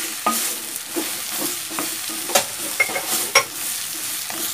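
Wooden spatula stirring cubed bottle gourd through hot oil in a clay pot: a steady sizzle with irregular scrapes and knocks of the spatula against the pot.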